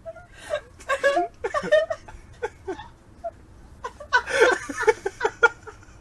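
People laughing and chuckling in short broken bursts, a cluster near the start and a longer run of laughter later.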